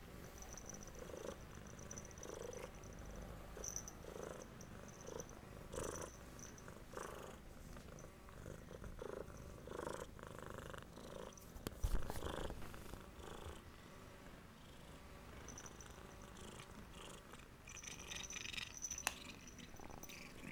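Domestic cat purring close to the microphone, pulsing about once a second. There is a single louder bump about twelve seconds in.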